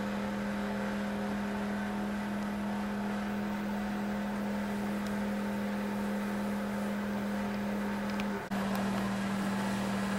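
A steady machine hum at one constant pitch with overtones, breaking off for a moment about eight and a half seconds in and then carrying on.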